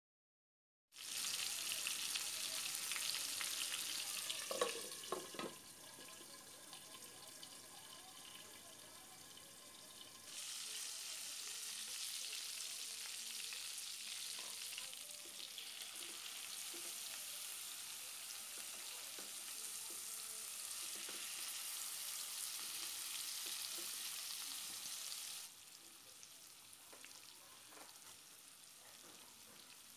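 Marinated chicken drumsticks shallow-frying in hot oil in a pan: a steady sizzle that starts about a second in and alternates between louder and quieter stretches. A brief knock a little over four seconds in is the loudest moment.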